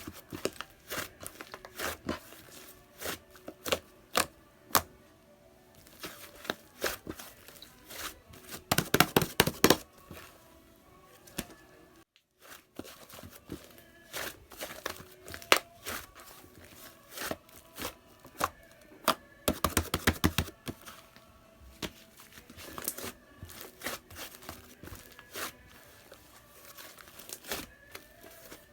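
Fluffy white slime being pressed, stretched and folded by hand, giving sharp clicks and pops as air pockets burst. There are two runs of rapid crackling pops, about nine seconds in and again about twenty seconds in.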